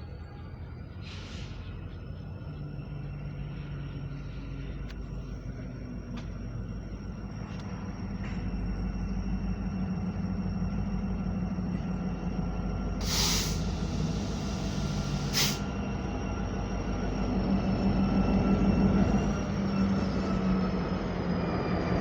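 EMD SD70ACe diesel-electric locomotive's two-stroke V16 engine running with a steady low drone that grows steadily louder. Two short hisses of air come a couple of seconds apart about two-thirds of the way through.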